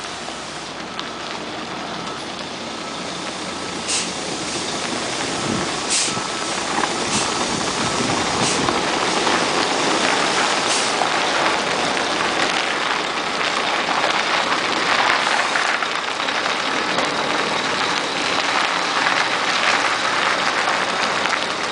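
Volvo tanker semi-truck reversing slowly, its diesel engine and tyres growing steadily louder as it draws near. Short sharp hisses of air from the brakes come five or six times in the first eleven seconds, and a reversing beeper sounds faintly in the first few seconds.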